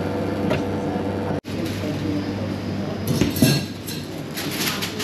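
Crockery and cutlery clinking in a bakery café over a steady low hum, with the busiest clatter about three seconds in and a brief dropout about a second and a half in.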